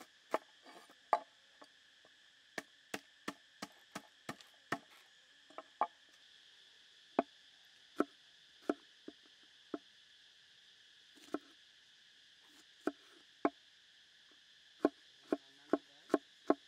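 Cleaver blade knocking on a wooden cutting board as garlic cloves are sliced and minced: irregular single chops, settling into a steady run of about two or three chops a second near the end.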